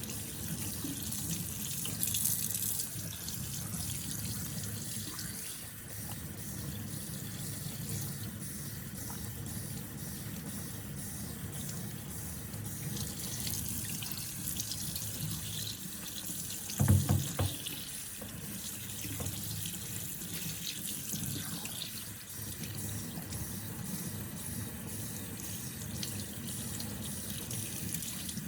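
Tap water running steadily into a sink. About seventeen seconds in there is one brief low thump, the loudest sound.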